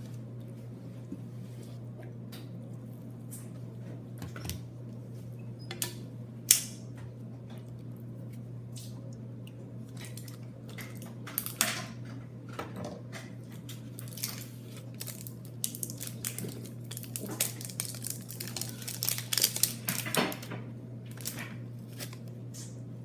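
Plastic packaging of a Verbatim CD-R 10-disc spindle pack being handled and opened: scattered clicks and taps, one sharp click about a quarter of the way in, then a longer run of dense crinkling and clattering in the second half. A steady low hum runs underneath.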